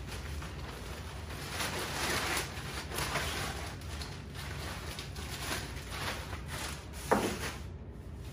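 Nylon carrying bag rustling and sliding as a folded Araer camping cot is pulled out of it, with one sharp clack near the end as the folded metal frame knocks together.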